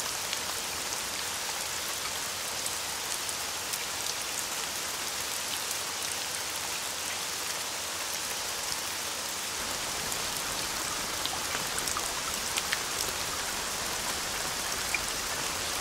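Steady rain: an even hiss with scattered sharp ticks of single drops, a few of them louder near the end.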